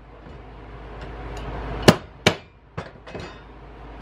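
Sharp hammer strikes on metal: two loud blows about two seconds in, half a second apart, then two lighter taps, the last ringing briefly. A rushing noise rises steadily underneath.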